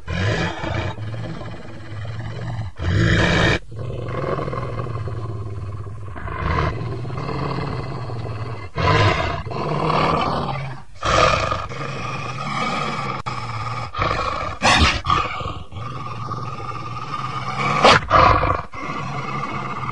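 Wolves growling low and continuously, broken by several louder snarls.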